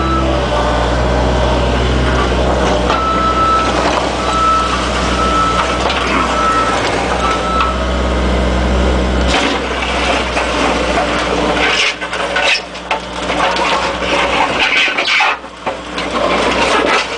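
Excavator's diesel engine running steadily while a motion alarm beeps about once a second; the beeping stops about eight seconds in, the engine note drops soon after, and a run of irregular knocks and clattering follows.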